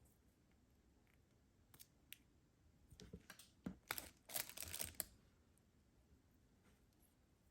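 Packaging being torn open and handled, crinkling and tearing in a burst of short noises between about three and five seconds in, after a few scattered clicks.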